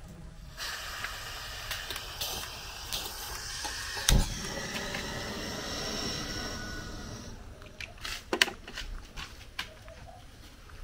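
Steady hiss of a pan of hot oil on a gas-cylinder burner, with one sharp knock about four seconds in. The hiss stops a few seconds later, followed by a few short clicks and knocks.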